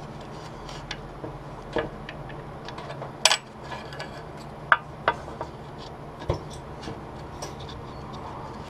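Scattered light clicks, taps and knocks of metal parts being handled as a truck engine's timing gear cover and new front main seal are lined up on a shop press bed, the sharpest knocks a little over three seconds in and again near five seconds. A steady low hum runs underneath.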